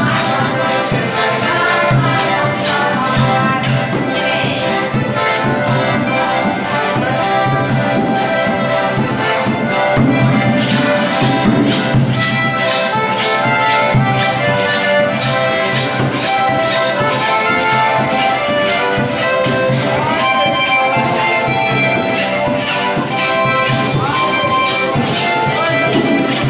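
Two button accordions playing a lively tune together, backed by a carpenter's hand saw scraped in a steady, even rhythm, the rake-and-scrape style of the Bahamas.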